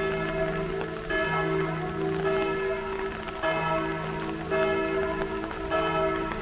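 Church bells pealing: a fresh bell stroke about every second, each tone ringing on under the next, and a deeper bell sounding on some strokes and not others.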